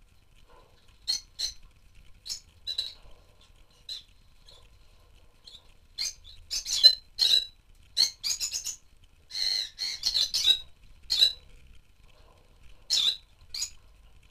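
A flock of rosy-faced lovebirds calling with short, sharp chirps. The calls come singly at first, then in a busy run through the middle, with a couple more near the end.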